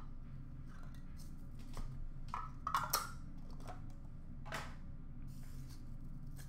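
Hands handling trading cards and a small plastic card box: a few light clicks and rustles, the loudest about three seconds in, over a steady low hum.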